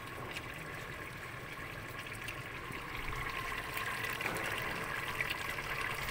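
Steady bubbling of a meat stew simmering in an open pressure cooker pot over a gas burner, with many small pops and crackles. It gets a little louder about three seconds in.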